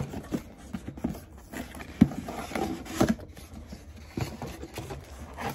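Cardboard box being handled and its flaps pulled open: irregular light knocks, scrapes and rustles of cardboard, with one sharp tap about two seconds in.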